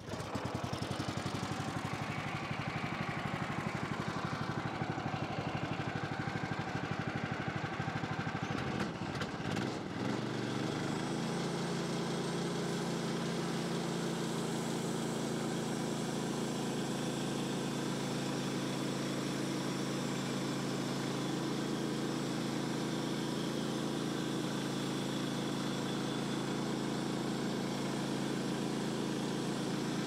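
Woodland Mills HM126 band sawmill's gas engine running after starting up. About ten seconds in it settles into a steadier, even drone.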